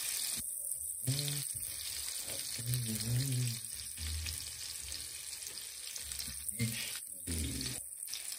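Flour-dredged Black Sea gobies frying in hot oil in a pan: a steady sizzling hiss.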